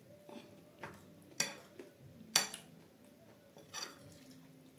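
Metal spoon clinking and scraping against a plate while scooping up chana chaat: about four sharp clinks, the loudest about halfway through.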